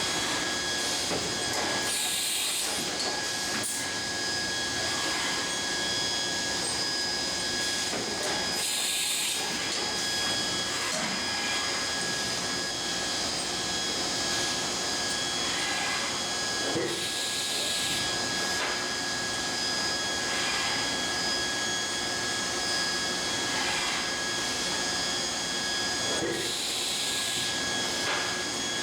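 Industrial machinery running: a steady hiss with a few constant high whines, broken about four times by short bursts of louder hissing.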